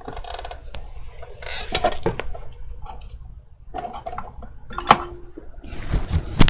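Irregular clatter, scraping and clicks of small objects being handled on an electronics repair bench, with a sharp click about five seconds in and another near the end.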